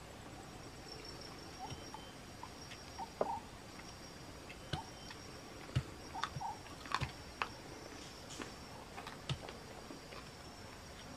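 Men eating fried chicken and rice by hand, with scattered chewing and lip-smacking clicks, over a faint steady high insect drone.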